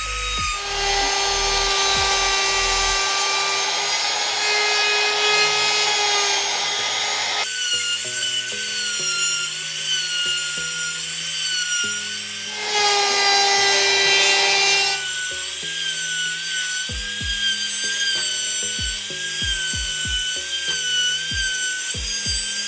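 CAZAR CZ-TVS036 trimmer/router running with a steady high whine while its bearing-guided bit trims the overhanging mica laminate from a board's edge. There are two stretches of louder cutting noise: one lasting several seconds near the start, and a shorter one of about two seconds midway.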